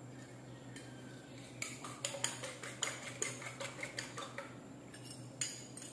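Eggs being beaten in a small bowl, the utensil clicking against the bowl about three or four times a second, starting a second or so in and thinning out near the end.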